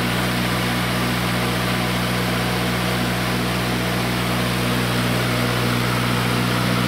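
Kohler standby generator's John Deere diesel engine running steadily at constant speed moments after a cold start at about 50 degrees, with no working block heater.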